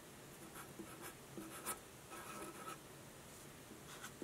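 Felt-tip Sharpie marker writing on paper: a few faint, short scratchy strokes and one longer stroke as an axis line and letters are drawn.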